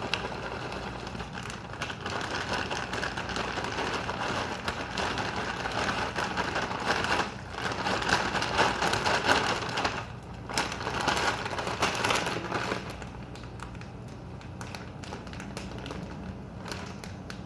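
Plastic bag of dried noodles crinkling and crackling as it is handled and squeezed. The crackling is loudest through the middle of the stretch and quieter over the last few seconds.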